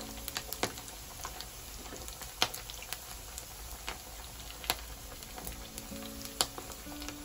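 Battered squid pieces deep-frying in hot oil: a steady sizzle with a few sharp clicks.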